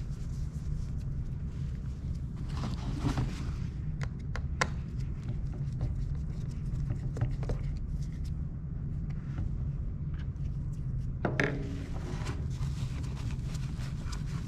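Hard plastic gutter-cleaning tube and adapter sleeve being handled, pulled apart and fitted together: scattered clicks, knocks and short rustles over a steady low rumble.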